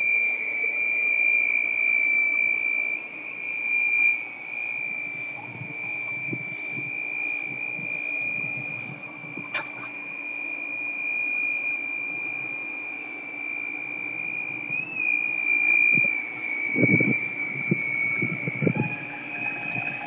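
A strange, steady, high-pitched whine from a pool's equipment: one unwavering tone with a fainter, higher one above it, wavering briefly about three-quarters of the way through. A low hum runs beneath it, and there are a few handling knocks near the end.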